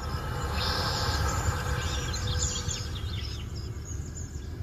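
Small birds chirping faintly over the low, steady rumble of a Mercedes-Benz W222's engine idling, heard from inside the cabin.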